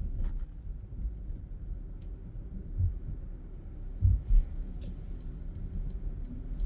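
Low, steady rumble of a car driving, heard from inside, with a few dull thumps, two close together about four seconds in, and faint scattered clicks.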